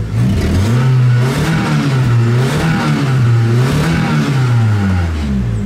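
Four-cylinder pickup truck engine, heard from inside the cab, revved up and down several times in a row. The number-four ignition coil pack has just been replaced after misfiring, and the engine is now firing on all four cylinders.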